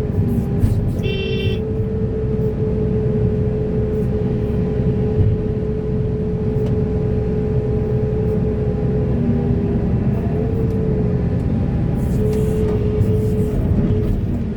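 Heavy diesel earthmoving machinery running steadily under load: a low rumble with a whine whose pitch shifts slightly. A short horn toot sounds about a second in, and a few metallic clanks come near the end.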